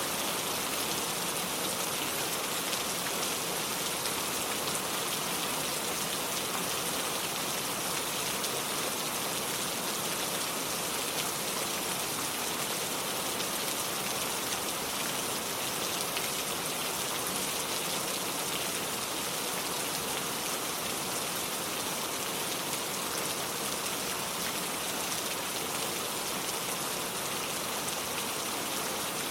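Steady rain falling on hard surfaces, an even hiss with fine pattering of drops and no lulls.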